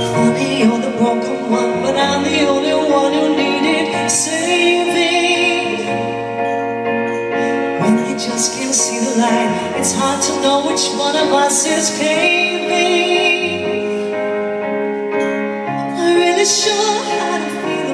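A woman singing a slow ballad with vibrato, over sustained piano chords on a stage keyboard.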